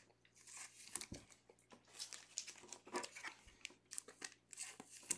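Faint, irregular rustling and crinkling as football trading cards and their packaging from a Mosaic blaster are handled and flipped through.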